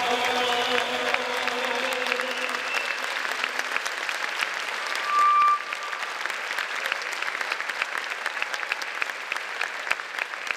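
Audience applauding, steady clapping throughout, while the last held note of the choir and instrumental ensemble fades out over the first two to three seconds. A short, loud, high whistle sounds about five seconds in.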